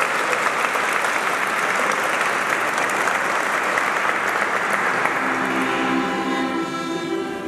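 Audience and choir applauding, with the clapping dying away about five to six seconds in. Near the end, sustained musical chords begin as the next piece starts.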